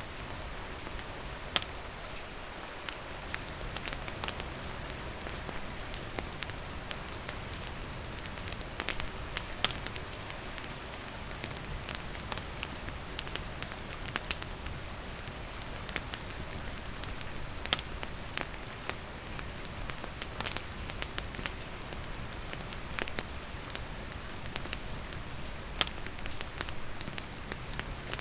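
Steady rain falling, with a wood campfire crackling in sharp irregular pops over it.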